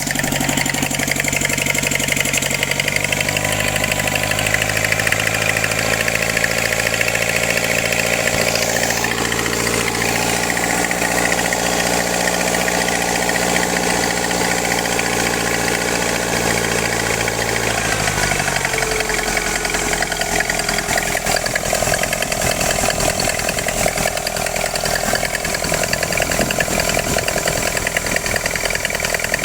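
Small engine running after a carburettor swap, making the odd running sound the owner is trying to fix. For about eighteen seconds it holds a steady pitch, then the pitch drops and the running turns rougher and less even.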